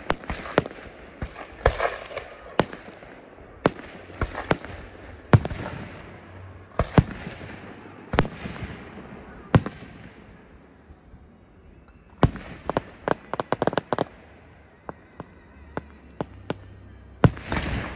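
Aerial fireworks going off: irregular sharp bangs of bursting shells, with a quick run of cracks about twelve to fourteen seconds in and a loud bang near the end.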